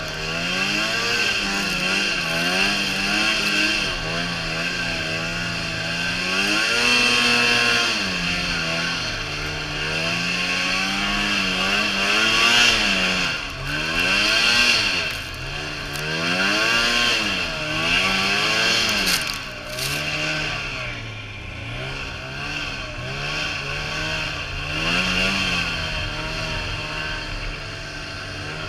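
Arctic Cat Z570 snowmobile's two-stroke twin engine running under load in deep powder. Its pitch rises and falls again and again as the throttle is worked on and off, swinging quickest over the middle part.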